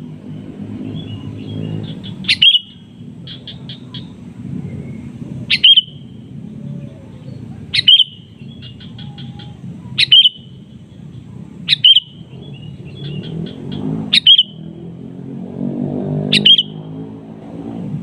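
Sooty-headed bulbul (kutilang) calling: a loud, sharp call about every two seconds, each call dropping in pitch, seven in all, with short bursts of quick chattering notes in between. It is the male's call to rival birds. A steady low rumble runs underneath.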